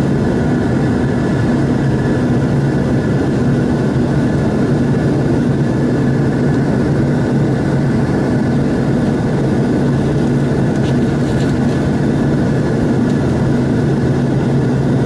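Jet airliner's engines heard from inside the passenger cabin during the climb just after takeoff: a steady, loud roar with a constant low hum and a fainter high whine.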